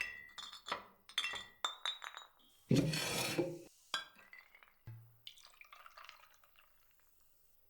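Glassware clinking: a quick run of light, ringing clinks, followed about three seconds in by a short louder noise.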